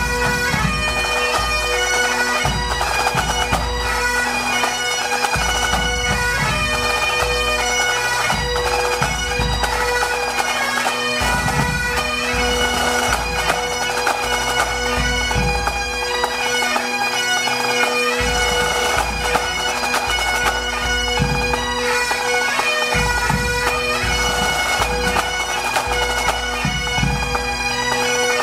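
A pipe band playing: several Great Highland bagpipes sounding a melody over their steady drones, with snare, tenor and bass drums keeping time underneath.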